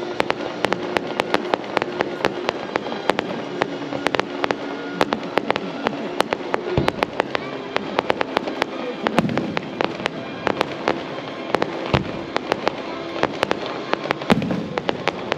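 Fireworks display: a constant run of sharp crackling reports, several a second, with a few deeper booms of shells bursting spread through.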